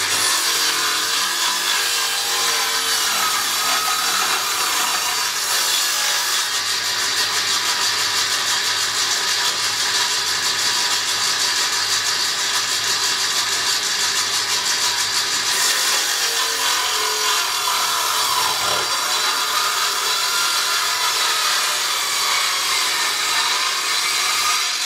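Combination woodworking machine's circular saw running and cutting through a weathered plank fed by hand, a steady loud noise whose pitch wavers slightly as the load changes.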